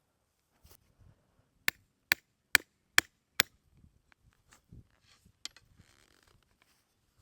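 Mini sledgehammer striking the top of an electric netting fence post, driving it into hard ground: five sharp blows about two a second, then a few lighter knocks.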